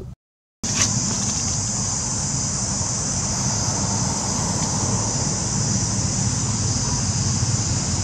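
Insects droning steadily in one high, even band over a low rumbling haze. The sound cuts out for a moment right at the start, then runs on unchanged.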